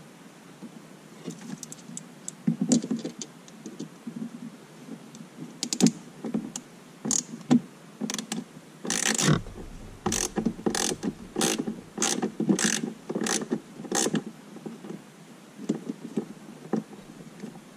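T15 Torx driver turning out the gauge's mounting screws: scattered clicks at first, then a run of short, sharp clicking strokes about two a second through the middle, with one longer scraping burst among them.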